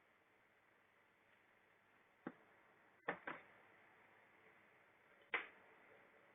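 A few separate sharp clicks and knocks, four in all, over a faint steady hiss.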